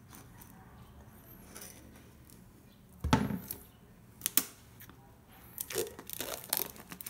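Plastic shrink wrap on a boxed iPhone being cut with a knife and peeled off. It is faint at first, with a thump about three seconds in, a couple of sharp clicks, then crinkling and crackling of the film over the last two seconds.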